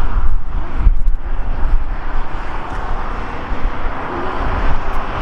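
Jet airliner engine noise: a loud, steady rush without breaks.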